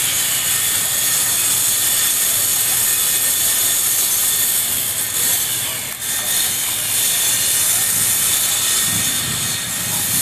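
A loud, steady, high-pitched hiss, dipping briefly about six seconds in.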